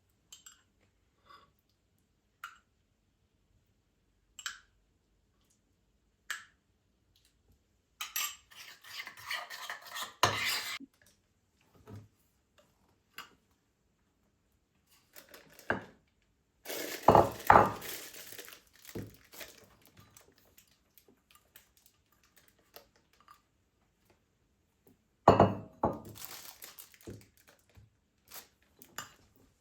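Dishes and cutlery being handled in a kitchen: scattered light clinks and knocks, with three louder bursts of clatter as pots, plates and utensils are set down and moved.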